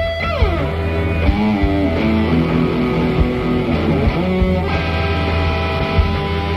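Electric guitar through a Fuzz Face fuzz pedal and wah-wah, playing a solo of held notes with slides down in pitch, over a steady low backing and regular short hits.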